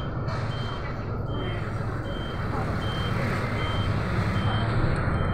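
City bus driving, its engine running with a steady low drone over road noise, while a short high electronic beep repeats about every three-quarters of a second.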